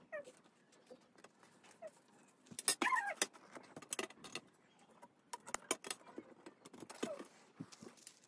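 Light clicks and taps of small craft items being handled on a glass tabletop. Over them come an animal's short whining cries that fall in pitch, the loudest about three seconds in.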